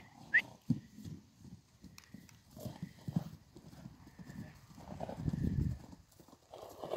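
Soft, irregular hoofbeats of a Dutch harness horse mare and her foal trotting loose over grass.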